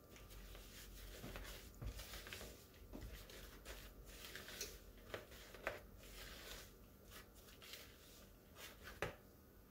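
Faint, irregular scraping and swishing of a silicone spatula stirring dry flour and sugar in a plastic mixing bowl, with a sharper click near the end.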